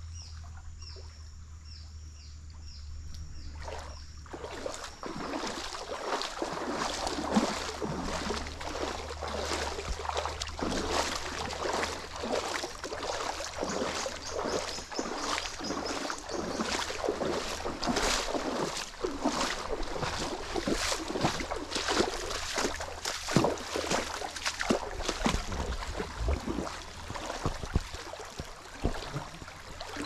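Water splashing and sloshing irregularly as someone moves through a shallow stream, starting about four seconds in. Before that, a bird calls in a quick series of short high notes.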